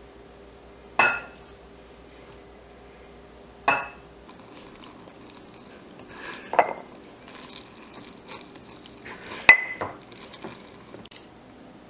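Glass mason jar clinking as shredded cabbage is packed into it with a tamper: four sharp, ringing clinks about two to three seconds apart, with soft scuffs and rustles of cabbage between.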